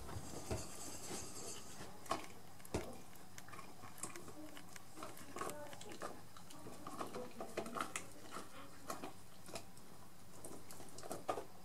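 Greyhound gnawing and mouthing a cling-film tube with biscuits inside: irregular clicks, crackles and knocks of teeth on the tube. A few sharper knocks come in the first three seconds and again near the end.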